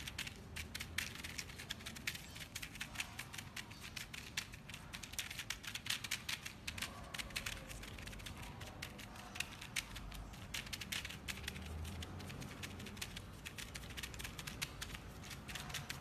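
Rapid, irregular clicking and tapping, many sharp clicks a second, around a yellow Indian ringneck parakeet on a hard stone floor, with a faint low hum underneath.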